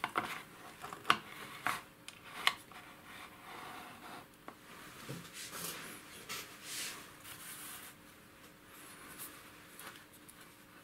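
Handling noises of a disassembled aircraft angle-of-attack indicator and its wires on a paper-covered workbench: a few sharp clicks and knocks in the first two and a half seconds as the unit is set down, then softer rubbing and rustling.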